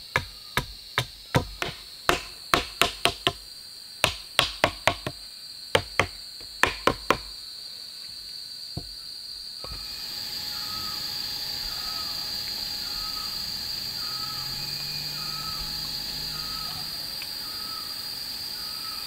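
Wood being struck with a hand tool in rapid, irregular sharp knocks, about three a second, that stop about seven seconds in. Then a steady high insect drone, with a short call repeating about once a second.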